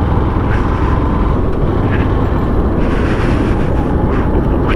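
Steady rush of wind and road noise on a moving motorbike, with the engine running underneath.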